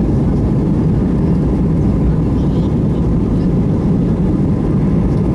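Steady loud rumble of an airliner's jet engines and cabin, heard from inside the cabin as the aircraft rolls along the ground, with a faint steady whine above it.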